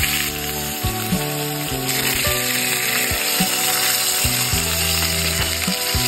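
Whole parrotfish frying in hot oil in a nonstick pan, sizzling steadily.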